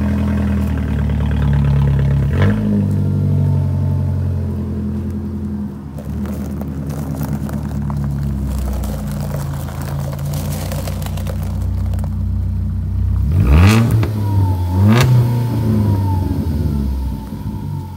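Straight-piped 2014 Ford Focus SE, muffler deleted, idling cold just after its first start on the new exhaust. The throttle is blipped once a couple of seconds in and twice in quick succession near the end, each rev rising sharply and dropping back to idle.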